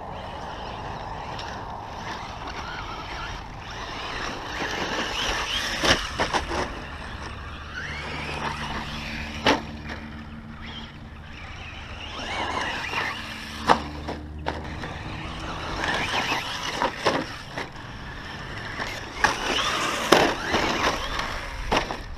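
Traxxas Slash 2WD RC truck's Castle 5600kv brushless motor whining up and down as it drives over loose dirt, with tyre scrabble and several sharp knocks a few seconds apart from bumps and landings.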